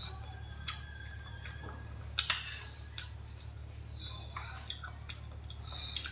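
Eating sounds: a metal spoon and chopsticks clicking and clinking against a stainless steel compartment tray, with chewing, the sharpest clink about two seconds in. A steady low hum runs underneath.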